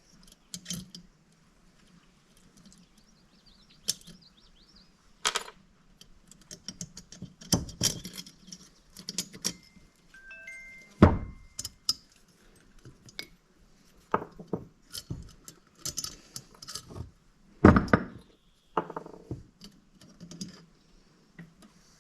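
Metal parts clinking and knocking as the valve springs, retainers and keepers come out of a Yamaha Warrior 350 cylinder head with a valve spring compressor. The sharp knocks are irregular, with a loud one about halfway and another later on, and a brief metallic ring just before the halfway knock.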